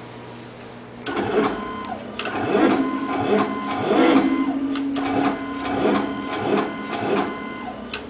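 Rexa electrohydraulic actuator running: its brushless motors and gear pumps whine in uneven spurts as the drive modulates its arm, starting about a second in, with the pitch stepping and gliding with each move.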